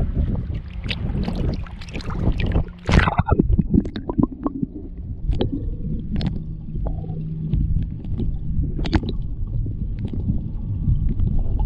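Water sloshing and splashing at the surface, with a louder splash about three seconds in. After that comes muffled underwater gurgling with scattered clicks, heard through a camera held under the water while a snook is released.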